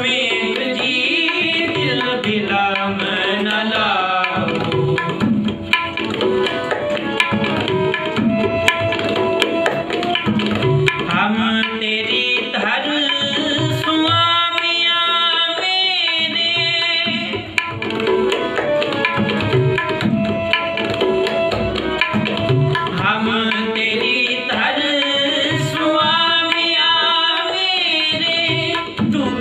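Harmonium melody with tabla keeping the rhythm underneath: an instrumental passage of Sikh shabad kirtan between sung lines.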